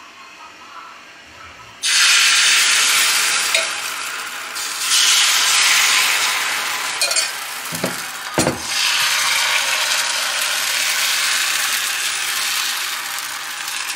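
Flour-and-semolina patishapta batter sizzling in a hot, oiled frying pan, starting suddenly about two seconds in and surging again around five seconds. Two sharp knocks just past the middle.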